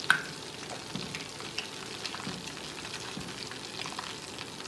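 Meat sizzling on a tabletop grill pan: a steady hiss with scattered small pops and crackles, and one sharp click right at the start.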